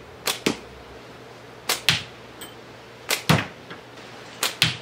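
Slingshot shots hitting a target box: four quick double cracks about a second and a half apart.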